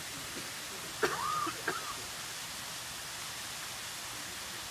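Steady rushing hiss of a waterfall behind the ceremony. About a second in, a brief high-pitched sound rises and falls once, lasting under a second.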